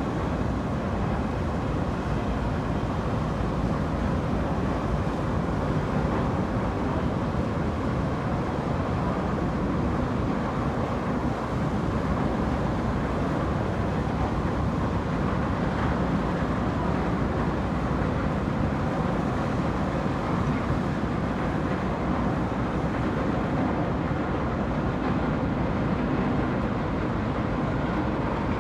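Large car ferry's engines running as it departs, a steady low rumble with no change in level.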